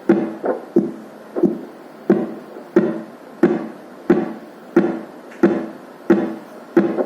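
Fetal Doppler loudspeaker playing a simulated fetal heartbeat from a fetal simulator set to 90 beats per minute: a regular pulse about one and a half beats a second, several beats followed by a fainter second pulse.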